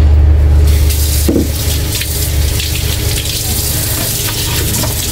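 Water running from a kitchen tap, starting a little under a second in and continuing steadily. A steady low hum sounds under it and fades after the first second or so.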